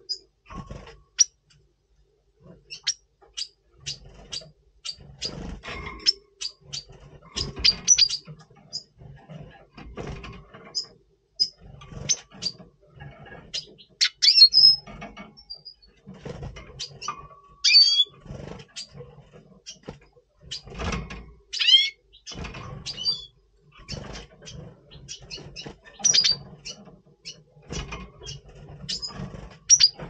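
Red siskins calling in breeding mood: a run of short, high chirps with a few quick twittering phrases, among soft knocks and rustles of birds moving about the cage.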